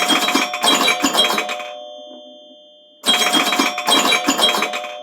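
Alarm ringtone for an iPhone: a quick run of bright chime notes that settles into a few held ringing tones and fades. The phrase plays twice, starting again about three seconds in.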